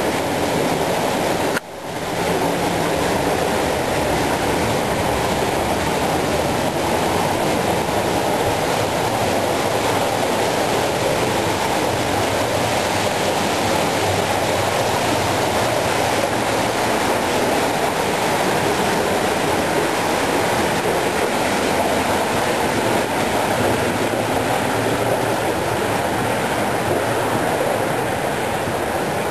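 Steady rushing noise of a tour boat under way: engine and water. It drops out for a moment a little under two seconds in.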